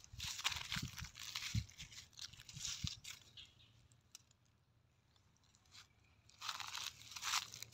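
Footsteps crunching through dry fallen leaves, several steps in the first three seconds, a pause, then more crunching near the end.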